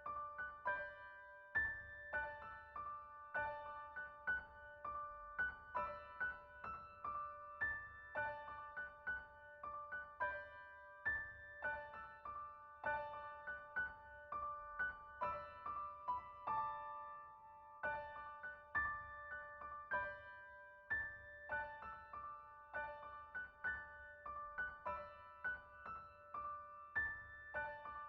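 Background music: a gentle piano or electric-piano melody of single struck notes at a steady pace, about two notes a second.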